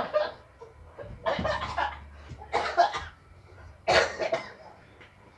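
A person coughing and sputtering in four short fits, each a little over a second apart, with a mouth stuffed with marshmallows during the Chubby Bunny challenge.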